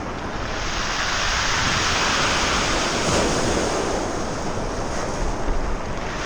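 Ocean surf washing onto the shore, a steady rush that swells a little about a second in, with wind buffeting the microphone.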